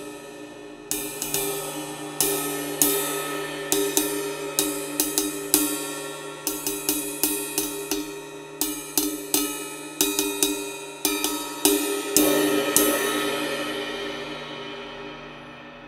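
19-inch Zildjian cymbal struck over and over with a wooden drumstick, the hits building a ringing wash. The last hits come about 13 seconds in, and the cymbal then rings down and fades. Its keyhole is repaired with a brass grommet, which the owner says does not vibrate in use.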